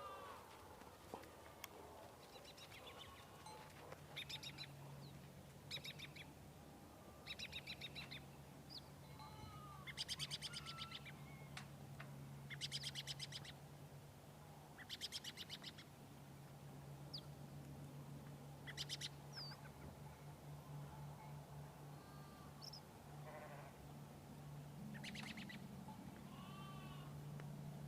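Sheep bleating in a pen, a series of short, quavering calls every few seconds, with small birds chirping between them. A steady low hum sets in about four seconds in.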